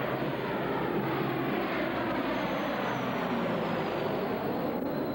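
Aircraft engine drone passing overhead, with a faint high whine that slowly falls in pitch over the second half.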